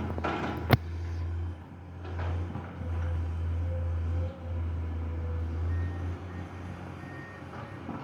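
Komatsu excavator engine running steadily with a low hum, and a sharp metallic clank under a second in.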